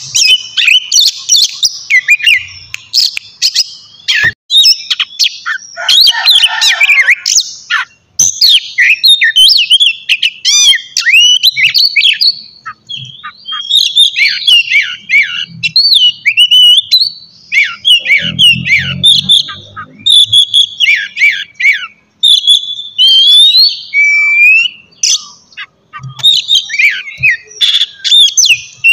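Oriental magpie-robin (kacer) singing a long, fast, varied song of rapid whistles, chirps and trills with barely a pause, a short low rough noise in the middle. This is the loud, full song kept birds are expected to answer.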